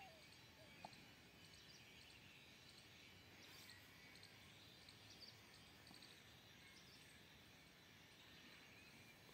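Near silence: faint outdoor background hiss with faint, scattered high chirps.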